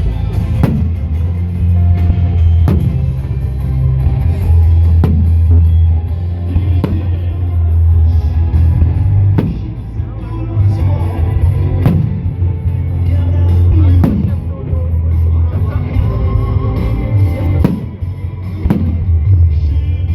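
Loud rock music with heavy bass and drums, over sharp firework bangs that come about every two seconds.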